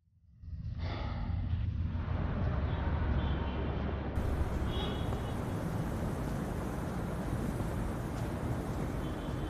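Outdoor city background noise: a steady low rumble that fades in within the first half second, with a few faint brief high chirps.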